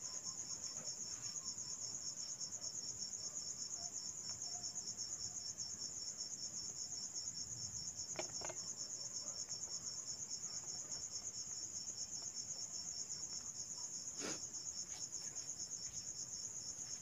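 A cricket chirping steadily in a fast, unbroken high-pitched trill, with two faint knocks about eight and fourteen seconds in.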